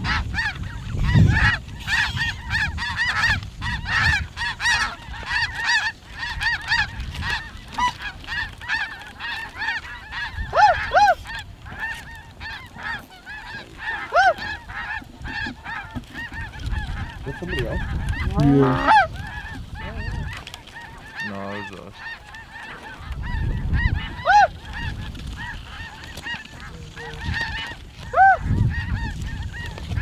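A dense chorus of snow geese calling, many high honks overlapping without a break, with single louder calls standing out now and then.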